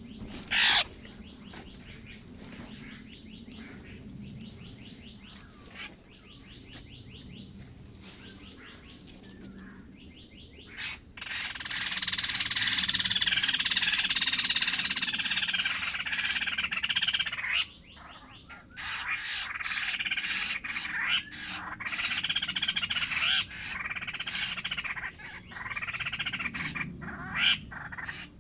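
Laughingthrush calling. Soft, rapid rattling notes at first, with one sharp loud note just under a second in. From about eleven seconds in comes a loud, dense run of chattering, then a string of repeated arching calls with short pauses between them.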